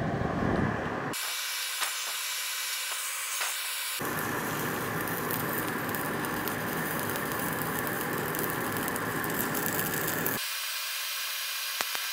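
Stick (MMA) welding arc from a 2.5 mm rutile universal electrode at about 80 A, crackling and hissing steadily as the bead is laid, with a couple of sharp clicks near the end.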